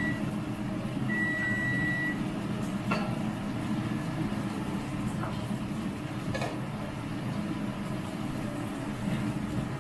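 Steady low hum of a kitchen range with a gas burner lit under an empty ceramic frying pan. A long, high, steady beep comes about a second in, and a light knock about three seconds in as a pat of butter is set into the pan.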